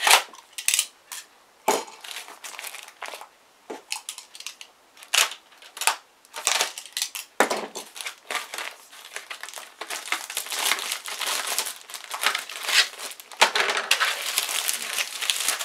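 Plastic shrink-wrap on slot car track sections crinkling and crackling as it is pulled off and handled, in irregular bursts that thicken into an almost continuous crinkle over the last few seconds.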